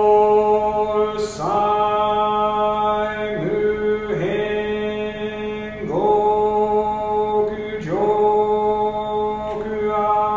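A single male voice chanting in long, drawn-out sung tones, typical of Jodo Shinshu Buddhist liturgical chanting. There are about five phrases, each sliding upward into a held note, with short breaks for breath between them.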